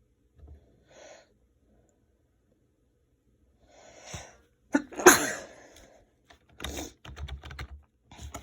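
A person sneezing once, about five seconds in, after a short breathy in-breath; the sneeze is someone's attempt to keep it quiet. Softer noisy sounds follow a second or two later.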